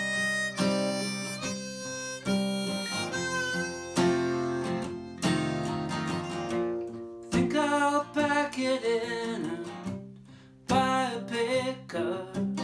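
Harmonica played in a neck rack, carrying the melody over a steel-string acoustic guitar. There is a short lull about ten seconds in before both come back in.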